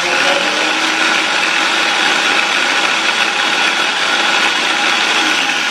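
Electric blender motor running steadily while grinding shallots, garlic and chilies into a chili paste. It cuts in abruptly at the start and holds an even whirring drone.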